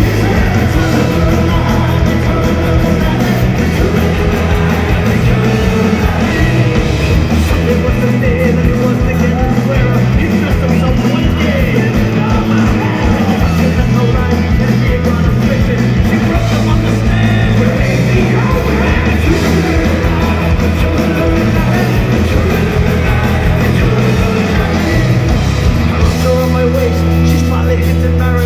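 Live Irish punk rock band playing loud, with guitars, bass, drums and a singer's shouted vocals.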